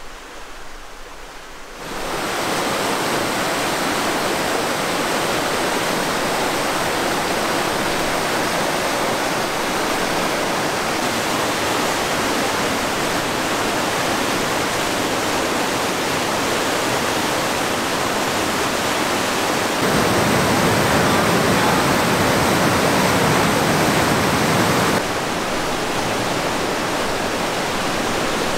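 Whitewater rapids rushing: a steady roar of fast-moving river water. It starts quietly, jumps up sharply about two seconds in, grows louder for several seconds past the two-thirds mark, then drops back.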